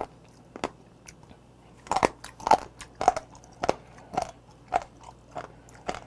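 A person chewing mideodeok (warty sea squirt) on a lapel mic: crunching bites. A few come early, then a steady run of about two a second starts about two seconds in. The firm, leathery skin is being bitten through.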